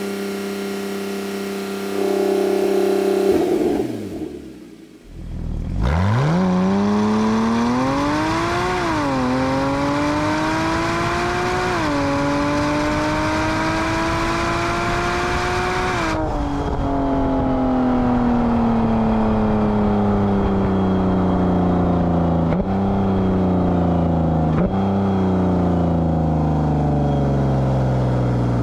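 Porsche Cayman 987.2 flat-six engine through a Soul Performance valved cat-back exhaust. First it holds steady at about 4000 rpm with the exhaust valves closed, then the revs drop away about four seconds in. Then, with the valves open, it accelerates with the pitch climbing through two gear changes; after lifting off, the pitch falls steadily on the overrun, with two small upward steps near the end.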